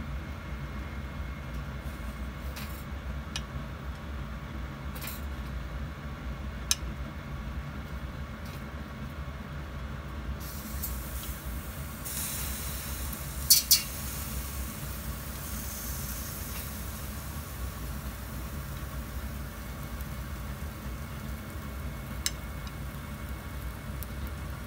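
Steady low rumble of a gas stove burner under a mesh grilling tray, with faint sizzling of shiitake mushrooms that grows about ten seconds in. Scattered clinks of chopsticks against the metal mesh and plate come through it, the loudest a sharp double clink about halfway through.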